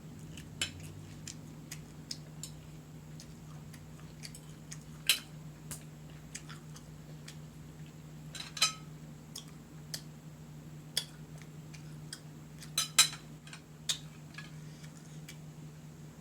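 Eating at a table: scattered sharp clicks and clinks, a dozen or so at uneven intervals, the loudest about five seconds in, near nine seconds and a close pair near thirteen seconds. A steady low hum runs underneath.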